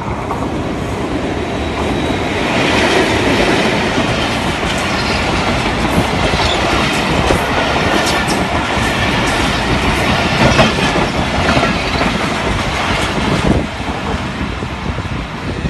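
Diesel-hauled passenger express, an HGMU-30R locomotive and its coaches, passing close by at speed: a loud rush of wheels on rail with clickety-clack over the rail joints. It drops suddenly as the last coach goes by near the end.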